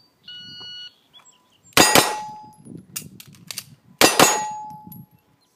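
A shot timer beeps once, then two quick pairs of gunshots about two seconds apart, each pair followed by a short metallic ring from the hit steel targets.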